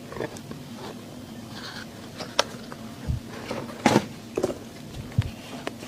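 Close-up eating sounds of someone biting into a chocolate lava cake: scattered wet mouth clicks and smacks, with a couple of soft low thumps.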